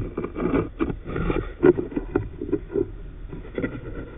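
Inspection camera's probe scraping and knocking against concrete as it is fed down a drilled anchor hole, a series of irregular knocks and scrapes.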